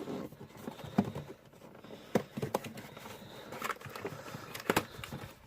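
Action-figure box being handled and opened: cardboard and plastic packaging giving scattered taps, clicks and rustles.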